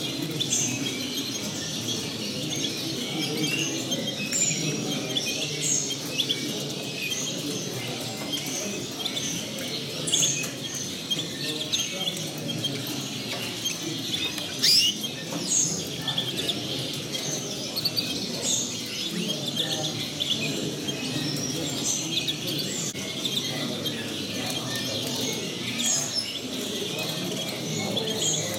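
Caged finches chirping and twittering: a steady stream of short, high chirps and brief trills, over a steady low background din.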